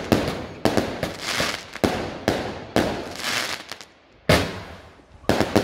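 Multi-shot firework cake firing a rapid barrage of sharp bangs, about two a second, each burst trailing a crackling hiss. The firing pauses briefly about four seconds in, then resumes with a quick pair of bangs near the end.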